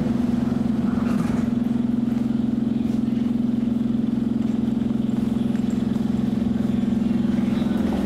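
Steady electric hum of an SMRT East–West Line metro train standing at a station platform, a low drone with overtones that holds level throughout.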